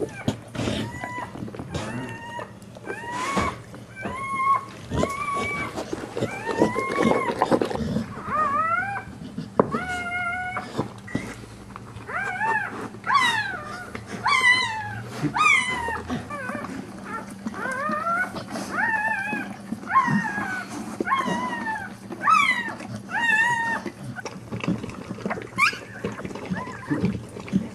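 Newborn American Staffordshire Terrier puppy crying: a long run of short, high squeaks and whines that rise and fall, one after another about every half second to a second, coming faster and louder about halfway through, with occasional clicks in between.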